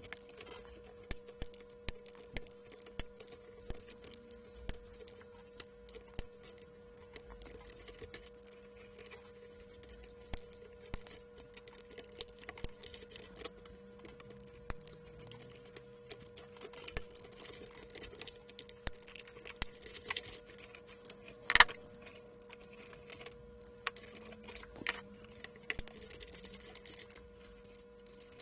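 Plastic cable ties being snipped one after another with cutters: a sharp click at each cut, irregularly about once a second, with one louder snap a little past two-thirds of the way through. A faint steady hum runs underneath.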